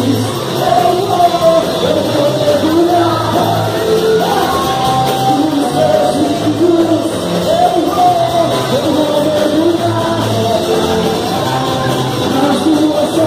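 Loud music with singing over a steady low beat, played for dancing in a large hall, with shouts over it.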